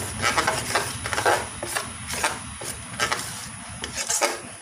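A hand mixing a thin chilli-powder paste in a metal bowl: irregular wet swishes and light knocks against the bowl.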